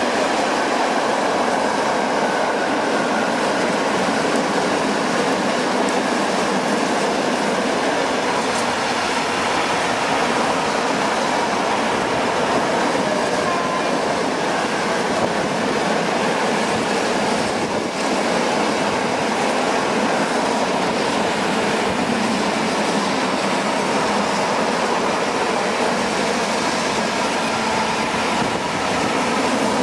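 A long freight train of open-top coal wagons rolling steadily past: a continuous rush of wheel-on-rail and wagon noise, with a faint thin wheel whine above it.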